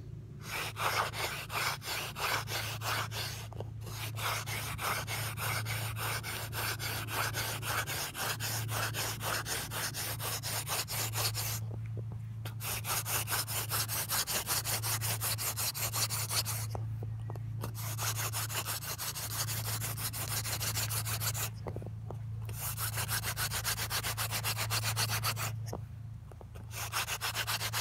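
Yucca spindle spun fast back and forth between the palms in the notch of a yucca hearth board: a dry wood-on-wood rubbing made of rapid even strokes. It breaks off for about a second several times as the hands go back to the top of the spindle. This is the friction-fire hand drill working up toward an ember.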